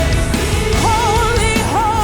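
Live worship band music: a sustained melody with a strong wavering vibrato, sung or played, over a full, steady band accompaniment.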